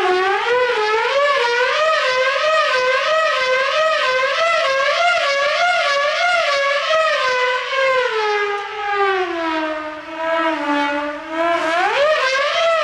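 Dive-bomber siren on a radio-controlled model plane, wailing loudly with a fast, steady warble. About eight seconds in the pitch sags lower, then it sweeps sharply back up near the end.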